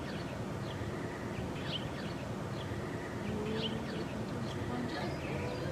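Short bird chirps repeating about once a second over a steady low outdoor rumble.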